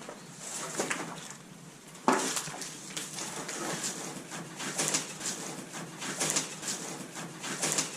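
Twigs and dry undergrowth rustling and snapping as people push through overgrown vegetation, starting with a sharp crack about two seconds in and followed by a run of irregular crackling rustles.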